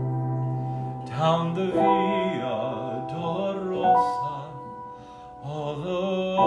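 Grand piano playing a slow hymn in held chords, with a man singing over it in short phrases with vibrato. The music drops quieter for a moment about five seconds in, then picks up again.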